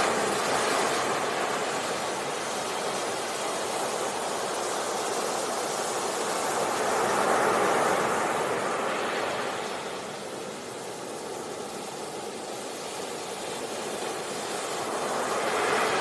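Ocean surf: waves breaking and washing up a beach in a steady rushing wash that swells about halfway through, eases off, and builds again near the end.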